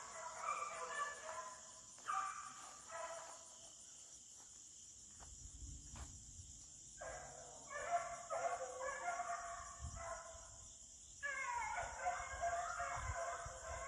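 A pack of beagles baying as they run a rabbit track, several hound voices overlapping. The chorus thins out for a few seconds near the middle and swells again near the end.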